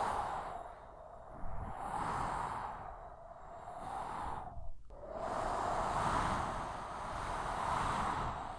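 Strong desert wind gusting in waves that swell and fade every second or two, with a hiss of blowing sand; it dips briefly to almost nothing about halfway through.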